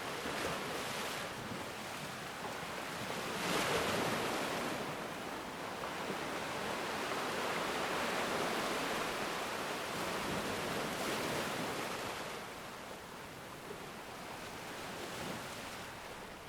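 Ocean waves breaking and washing up a shore: a continuous rushing surf that swells as a wave breaks about four seconds in, stays full for several seconds, then eases off toward the end.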